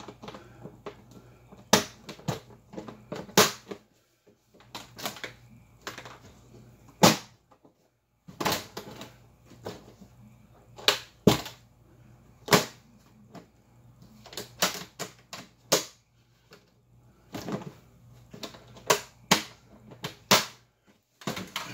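Rummaging through a hard-shell guitar case's accessory compartment: an irregular run of sharp clicks and knocks from small hard objects being moved about, with a couple of short pauses.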